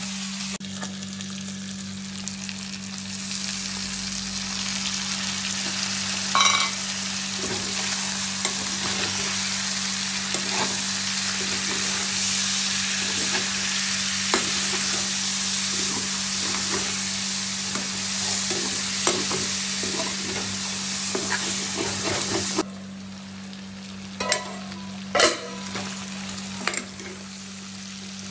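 Chicken and onions sizzling in oil in a kadai while a metal spatula stirs and scrapes the pan, with a ringing clink of the spatula on the pan about six seconds in. The sizzle drops away suddenly about 23 seconds in, leaving scraping and a few more clinks, over a steady low hum.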